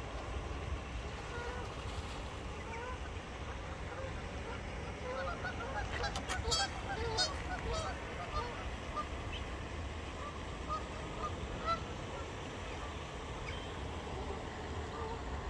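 Geese honking: scattered short calls, coming thickest about six to eight seconds in, over a steady low background rumble.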